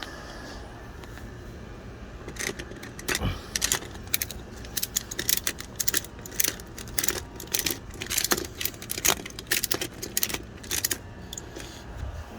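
Ratchet strap being cranked: a run of sharp metallic clicks from its ratchet, several a second and unevenly spaced, starting about two seconds in and stopping near the end, as the strap is tightened to pull a pool liner up into its track.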